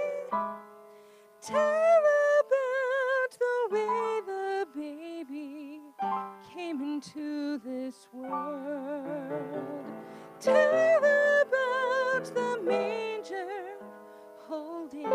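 A woman singing a solo with vibrato into a microphone over instrumental accompaniment, in phrases with short breaths between them.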